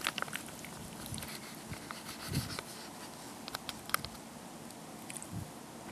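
A metal spoon scraping and stirring inside a foil-lined boil-in-the-bag meal pouch, the pouch crinkling, with scattered small clicks.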